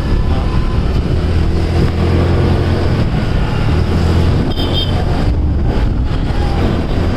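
Riding a scooter: wind buffeting the microphone over the engine and road noise, steady throughout. A brief high-pitched beep like a horn toot sounds about four and a half seconds in.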